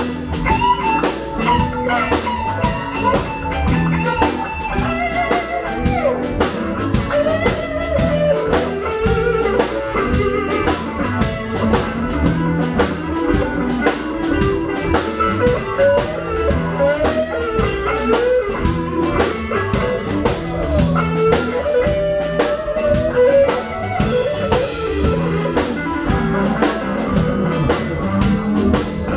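Live electric blues band playing: a Gibson electric guitar plays lead lines with string bends over a drum kit keeping a steady beat.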